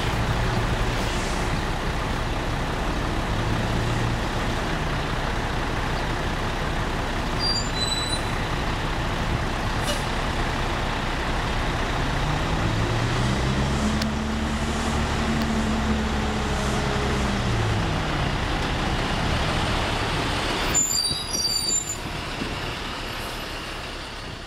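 Oshkosh Striker airport crash tender's diesel engine running in street traffic. Its engine note climbs and then falls away as the truck pulls past, and the sound fades out at the end.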